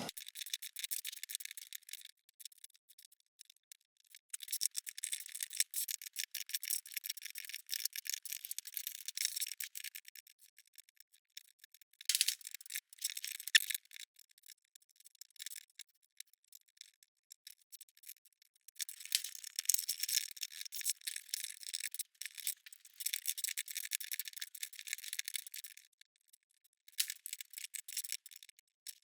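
LEGO plastic pieces clicking and rattling as they are pulled apart and handled: dense runs of small clicks in stretches of a few seconds, with short pauses between them.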